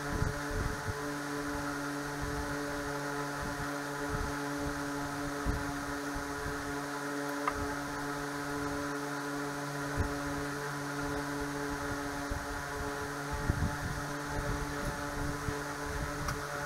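A steady mechanical drone at one constant pitch, with a few light clicks and knocks from small parts being handled.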